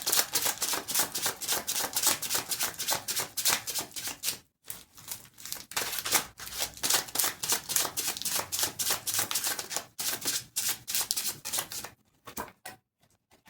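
A deck of tarot cards being shuffled by hand: a rapid run of crisp card clicks, with short breaks about four and a half and six seconds in, ending about twelve seconds in.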